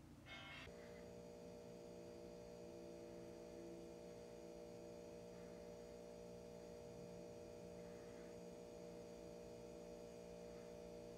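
Near silence with a faint, steady electrical hum of several tones, starting just under a second in after a brief faint sound at the very start.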